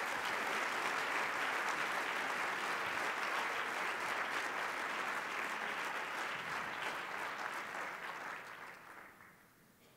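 Audience applauding, a dense steady clapping that dies away over the last two or three seconds.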